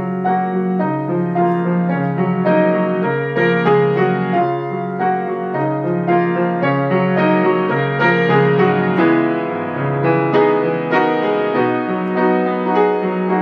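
Instrumental piano music: a run of quick notes over held low notes.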